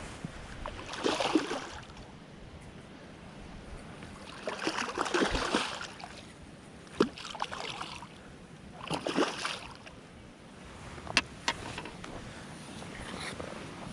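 Water splashing and sloshing in three or four irregular surges, with a few sharp clicks between them.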